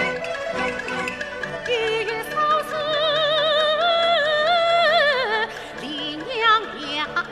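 Yue opera singing with Chinese orchestral accompaniment. A female singer in a male (xiaosheng) role holds a long, wavering, ornamented note that falls away about five seconds in, followed by lower gliding phrases.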